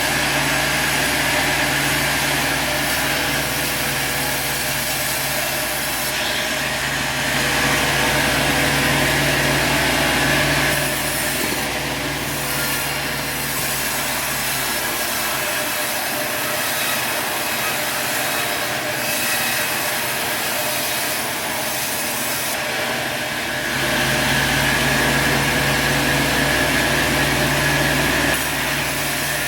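Sawmill running and sawing through a log: a steady machine noise with a low hum that swells louder twice. The low rumble drops out for several seconds in the middle, as the load on the saw changes.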